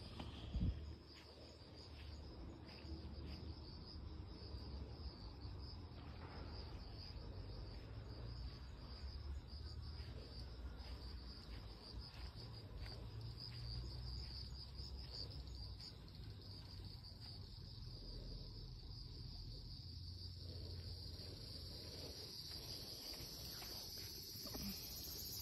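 Insects chirring in a steady, high, continuous drone, over a low rumble, with a brief thump about a second in.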